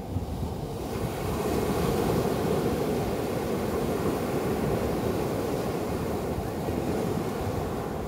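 Small sea waves breaking and washing up a sandy shore: a steady hiss of surf that swells about a second in.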